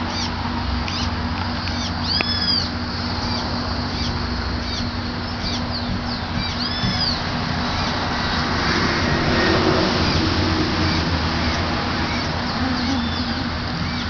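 Birds chirping: many short, high, arched calls scattered throughout, a couple louder ones about two and seven seconds in, over a steady low engine hum.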